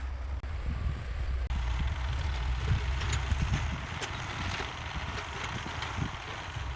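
Heavy diesel construction machinery working: a deep, steady engine rumble under irregular knocks and clatter.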